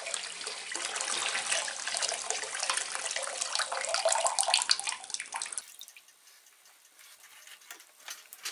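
Water pouring from a hose into a plastic basin already full of water, splashing steadily: the soaking water being drained out of a new oak barrel. The pouring cuts off suddenly about five and a half seconds in, leaving only faint small clicks.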